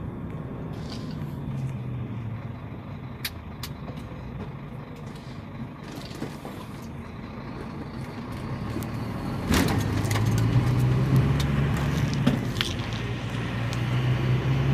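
Truck engine and road noise heard from inside the cab while driving, with a few sharp clicks and rattles. The engine grows louder about two thirds of the way through.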